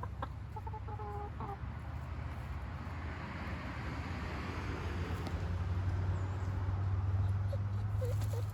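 Chickens clucking a few short times in the first second and a half, over a steady low hum. After that a rushing noise builds and stays loud to the end.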